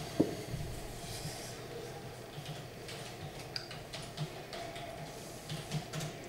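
A wooden chess piece set down on a wooden chessboard with one sharp knock a moment in, followed by a few faint scattered taps over low room hum.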